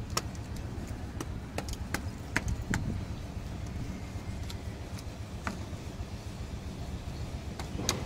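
Concrete mixer machine's engine running steadily in a low hum, with a few sharp knocks and scrapes of shovels working wet concrete.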